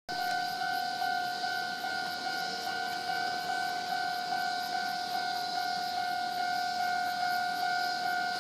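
Railway level crossing alarm ringing steadily, warning that a train is approaching, over a steady high-pitched hiss.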